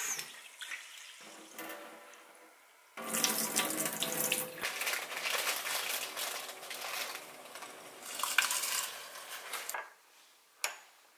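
Kitchen sink tap running into a bowl of rice as the rice is rinsed, water splashing in the bowl, louder from about three seconds in. It stops shortly before the end, followed by a single sharp click.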